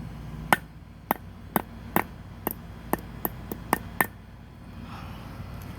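Hammer striking a fidget spinner again and again: about ten sharp blows, roughly two a second, stopping about four seconds in.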